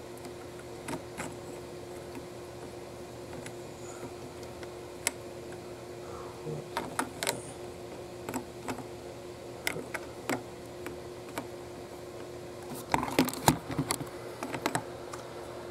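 Plastic LEGO pieces clicking and clattering as hands turn and pose a small brick-built robot. Scattered single clicks, then a quick flurry of clicks near the end, over a faint steady hum.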